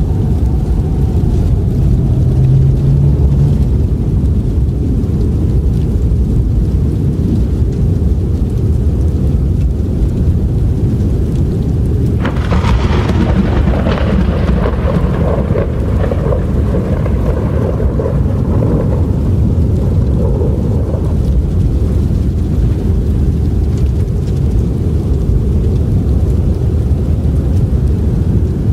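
Blizzard ambience: a steady, deep roar of howling storm wind. About twelve seconds in, a sudden louder blast with a hiss sets in and dies away over several seconds.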